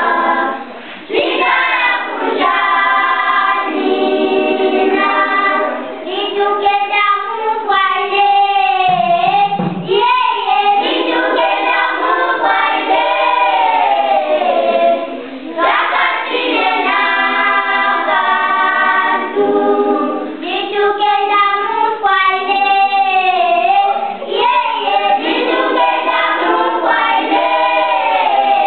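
Children's choir singing together in phrases, with brief breaks for breath between them.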